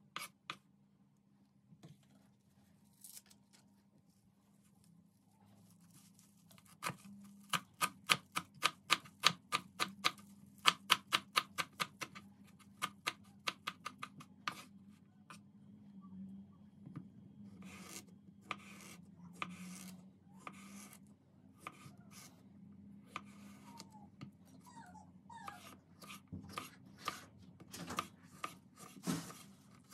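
Kitchen knife chopping leafy greens and herbs on a wooden cutting board: a run of quick knocks of the blade on the board, about four a second, after a few quiet seconds. The knocks thin out partway through and pick up again near the end as a cucumber is sliced.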